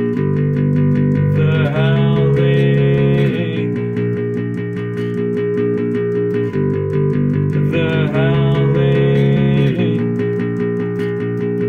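Instrumental passage of a rock-style song: held guitar and bass chords over a steady ticking beat. A higher lead line with bending notes comes in twice, about six seconds apart.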